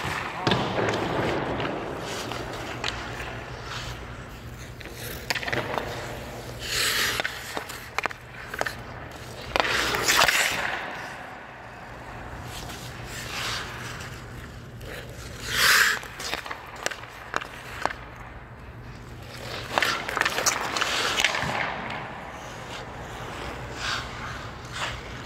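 Hockey skate blades carving and scraping on rink ice in several hissing bursts, the loudest about ten and fifteen seconds in, with sharp clacks of stick and puck between them. A steady low hum runs underneath.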